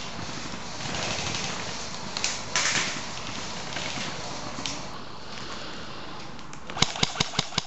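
Airsoft rifle firing a rapid string of sharp shots, about six a second, near the end, the loudest thing heard. Before that, a steady outdoor hiss with a brief burst of noise about two and a half seconds in.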